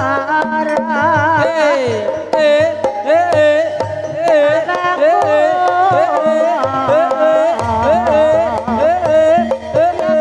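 Javanese gamelan music for a kuda kepang (ebeg) horse dance: a sinden sings a wavering, ornamented melody over hand-drum (kendang) strokes and gamelan, with one sliding fall in pitch about two seconds in.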